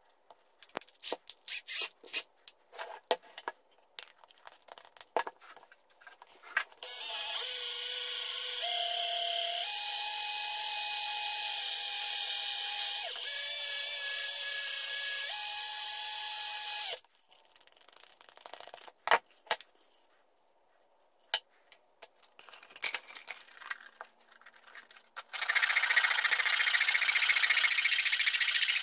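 Bosch cordless drill spinning a wooden mug while sandpaper is held against it, its motor whine stepping up and down in speed under a steady sanding hiss for about ten seconds. Before it come light knocks and clicks of the wooden parts being handled. Near the end there is steady hand sanding of the wooden handle on a sandpaper-wrapped tube.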